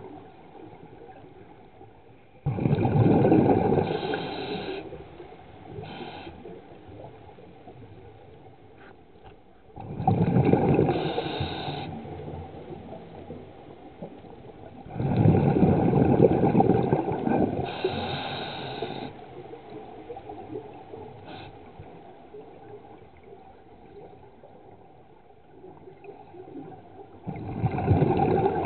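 Scuba diver breathing underwater through a regulator: four loud bursts of exhaled bubbles, each a couple of seconds long and at uneven intervals, with a quieter hiss between them.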